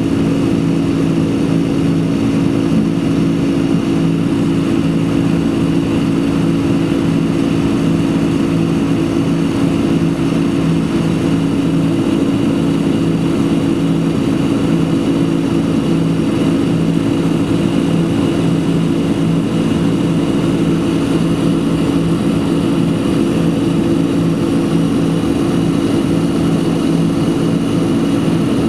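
Boeing 767-300's turbofan engines during the climb after takeoff, heard inside the passenger cabin: a steady drone with a few held low tones over an even rushing hiss.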